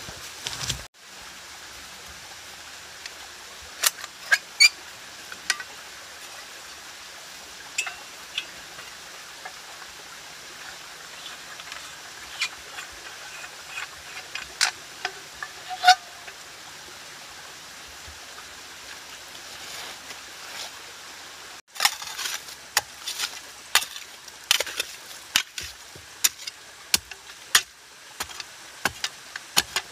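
Steady outdoor hiss with a few scattered small clicks, then, about two-thirds of the way in, a folding shovel starts chopping into a wet clay bank: a quick, irregular run of sharp strikes.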